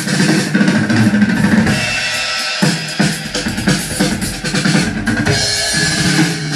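Drum-heavy sound-test music played loudly through an eight-speaker rig (four Jackhammer woofers, two JBL subwoofers and two Crown horn tweeters) driven by a Konzert K650 power amplifier. The deep bass drops out briefly about two seconds in, then comes back heavy.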